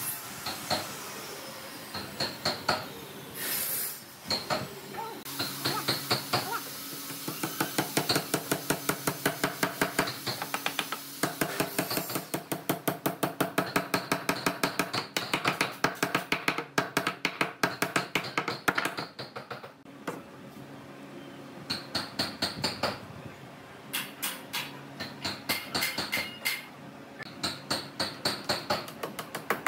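A hammer tapping a chisel in rapid, even strokes, several a second, to carve the wooden arm of a chair, with a slight ring on each blow. The tapping comes in long runs broken by a few short pauses.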